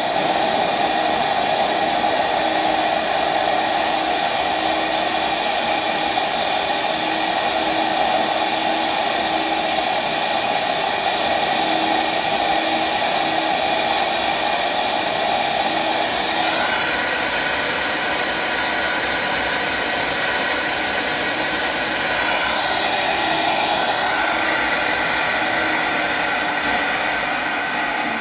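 Flow bench running, its vacuum motors pulling a steady rush of air through a 7.3 IDI diesel cylinder head's intake port. The whine changes pitch about sixteen seconds in and again a few seconds later, and it begins to fade near the end.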